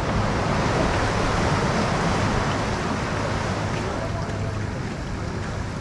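Steady rush of wind and surf on open salt water, with a low steady hum underneath.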